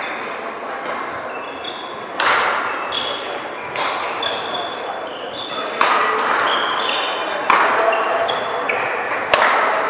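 Badminton rackets striking the shuttlecock in a rally: five sharp hits about two seconds apart, each echoing in a large hall. Between the hits come short high squeaks of shoes on the court.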